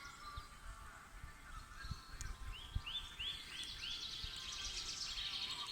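Songbirds singing in a grove. About two seconds in, one bird gives a run of about five quick repeated swooping notes that run into a rapid trill, with fainter calls from other birds around it and low wind rumble underneath.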